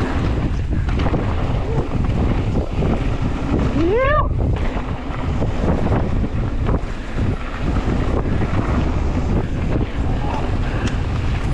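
Wind rushing over the microphone of a mountain bike riding fast down a dirt trail, with the bike's knocks and rattles over bumps. About four seconds in, a rider gives one short rising whoop.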